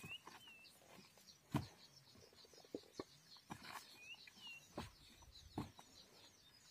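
Handling noises from a fishing net being worked on a styrofoam float: rustling and a few sharp knocks, the loudest about one and a half seconds in. A bird gives a short two-note whistle twice, at the start and about four seconds in, over faint high chirping of other birds.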